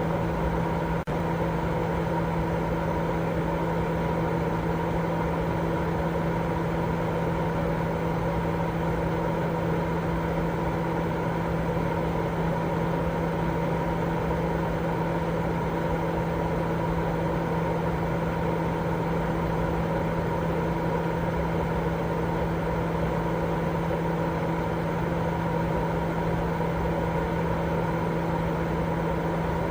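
Steady white-noise sleep sound: an even, machine-like drone with a steady low hum running through it, broken only by a brief drop in level about a second in.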